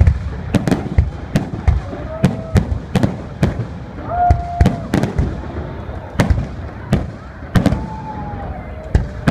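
Fireworks display: an irregular run of sharp bangs from bursting shells, several a second, with deep booms beneath them.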